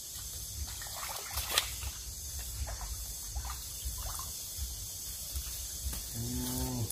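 Shallow river water trickling, with faint small splashes and one sharp click about one and a half seconds in. A man's voice sounds briefly near the end.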